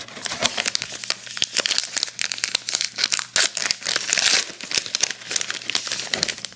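A baseball card pack's wrapper crinkling as it is torn open, a dense run of crackles and small clicks.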